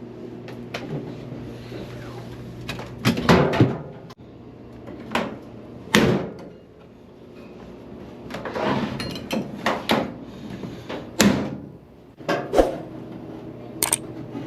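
An LG clothes dryer running with a steady hum, broken by a series of irregular loud knocks and bangs about three to four seconds in, again near six, around nine to eleven, and near the end.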